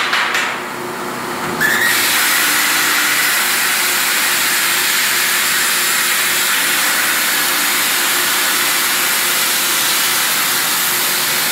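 A CNC cutting machine at work: a loud, steady hiss that starts suddenly about two seconds in and holds without a break.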